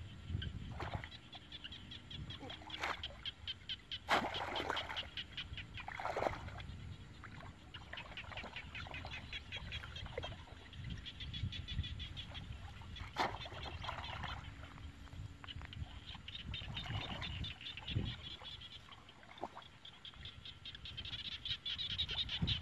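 A chorus of frogs calling in fast, even pulses, with water splashing now and then as a person wades and handles bamboo fish traps. The loudest splashes come about four and six seconds in.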